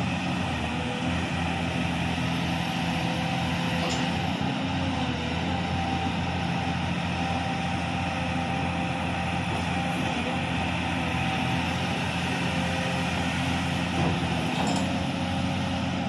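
LiuGong 939E excavator's diesel engine running steadily under hydraulic load as the boom and arm are lowered and reached out, with an even engine note throughout.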